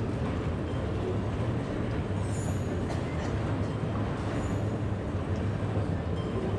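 Steady low rumble under an even hiss of ambient noise, with no distinct events.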